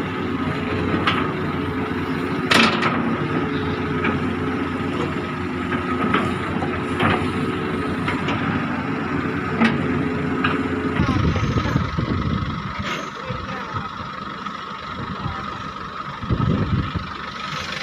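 Diesel engine of a new Hitachi excavator running during its engine test: a steady hum with a few sharp clunks. About eleven seconds in, the note changes and the engine runs lower and rougher, with two short rumbling surges.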